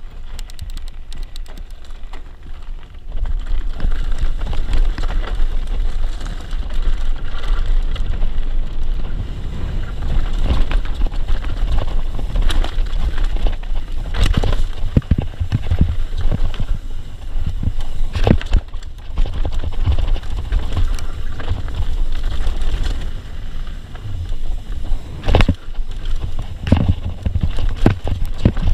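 Mountain bike descending a rocky trail: wind rumbling on the camera's microphone and tyres rolling over gravel and rock, growing louder about three seconds in as the bike gets going. Sharp knocks and rattles from the bike hitting rocks break through repeatedly, the loudest near the end.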